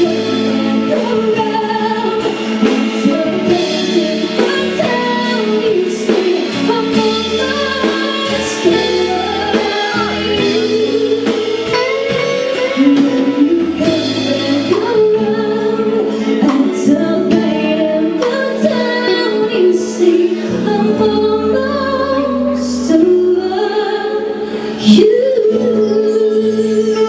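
Live band performance: a woman singing lead into a microphone over electric guitar and keyboard backing, with a brief loud swell near the end.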